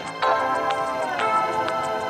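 Background music: held chords with a steady beat of about two hits a second.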